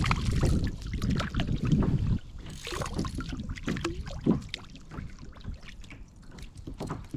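Small waves lapping and slapping against a sit-on-top kayak's hull, with irregular sharp splashes. Wind rumbles on the microphone for the first two seconds, then drops away suddenly.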